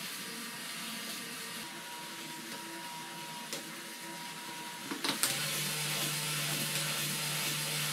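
Lego battery box switch clicking a few times about five seconds in, after which the electric motor starts and runs steadily with a low hum, turning the plastic Reuleaux triangle mechanism. Before the switch, a quieter steady mechanical whir.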